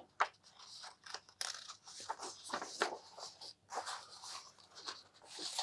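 Cards and paper sheets being handled and shuffled through, with a string of light, irregular rustles and soft taps.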